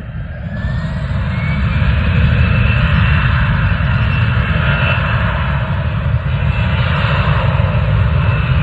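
Airplane engines passing close by. The noise swells over the first two seconds, with a faint rising whine, then holds loud and steady over a deep rumble.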